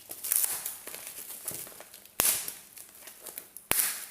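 Packaging of a handheld gimbal being opened by hand: rustling and crinkling, with two sharp snaps, the second about a second and a half after the first.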